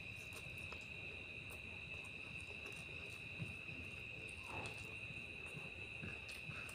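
Soft eating sounds: chewing, and fingers mixing rice and curry on a plate with small wet clicks. A steady high-pitched tone runs underneath throughout.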